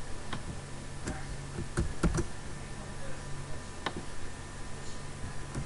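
A handful of sharp computer mouse clicks, three in quick succession about two seconds in, over a low steady hum.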